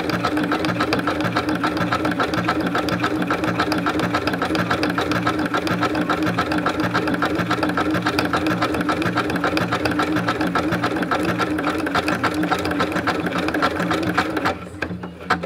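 Domestic electric sewing machine stitching cotton seersucker, running steadily at speed with a rapid, even needle clatter and motor hum, then stopping about a second before the end.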